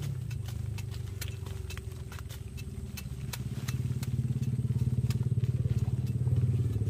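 A small engine, most like a motorcycle, runs at low revs with a steady pulsing hum that grows louder from about four seconds in. Faint sharp ticks sound over it as a bolo knife cuts roots off a taro corm.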